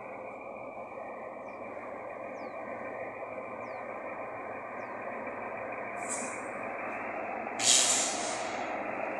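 Diesel-electric freight locomotives approaching, their engine drone slowly growing louder. Near the end, two hisses of released air: a short one, then a much louder one lasting about a second.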